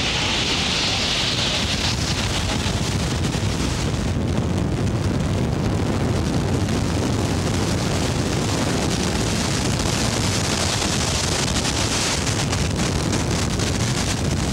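Strong tornado wind rushing past and buffeting the microphone: a steady, loud rushing noise.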